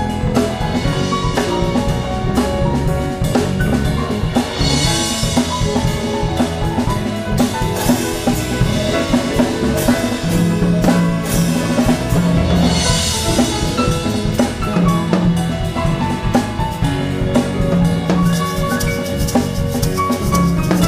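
Live band instrumental: grand piano playing quick runs of notes over a drum kit and bass line, with two cymbal swells along the way.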